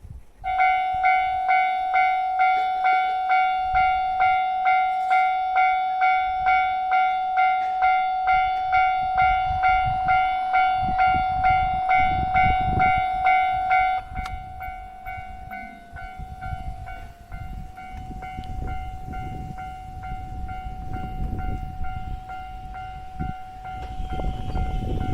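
Japanese level-crossing warning alarm switching on about half a second in, its electronic bell tone ringing about twice a second. Partway through it becomes quieter, while the rumble of a passing train grows beneath it.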